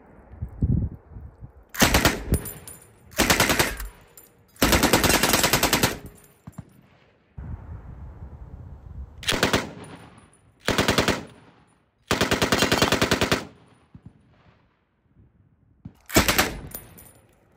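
Johnson M1941 light machine gun in .30-06 firing on full automatic in short bursts: seven bursts in all, the two longest running over a second.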